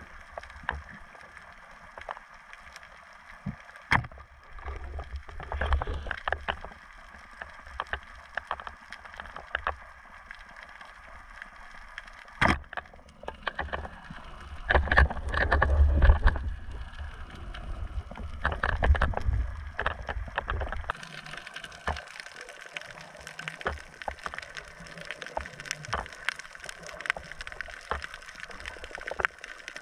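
Water heard through an underwater camera as a spearfisher swims along a reef: low rushing and sloshing in irregular bursts, loudest about halfway through, over scattered sharp clicks and crackles that grow denser near the end.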